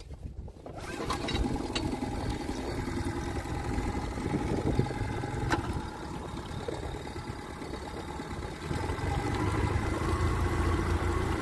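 Small dinghy outboard motor starting about a second in and running steadily, then growing louder about nine seconds in as it speeds up.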